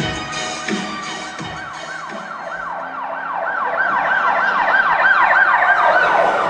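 Siren sound effect in the performance soundtrack: a quick rising-and-falling wail repeated a few times a second, growing louder and then cutting off suddenly. The dance music before it fades out in the first second or so.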